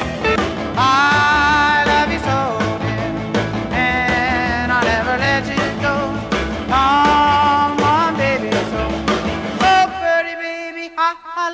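Rock and roll background music with a melody line over bass and drums; the bass and drums drop out about ten seconds in.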